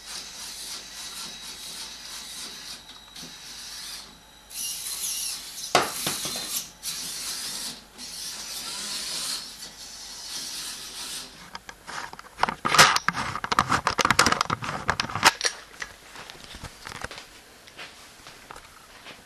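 VEX competition robot running: its motors and gears whir in spells that stop and start, then a burst of rattling and clicking lasts about three seconds around two-thirds of the way in.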